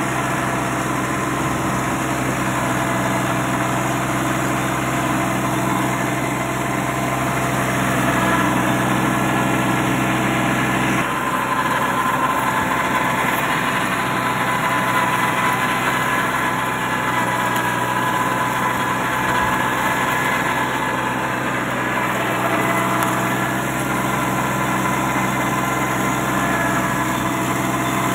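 Kubota 21 hp compact tractor's diesel engine running steadily under load while its rear rotavator churns the soil between grass rows. About eleven seconds in, the engine note shifts slightly.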